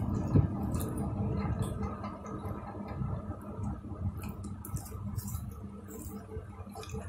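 People eating noodles: chewing and wet mouth sounds, with light clicks of forks against plates, over a faint steady hum.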